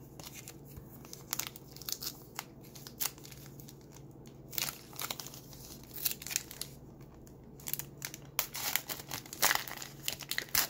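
Plastic foil wrapper of a Panini Absolute Memorabilia basketball card pack crinkling and tearing as it is handled and ripped open, a run of sharp crackles that grows denser near the end.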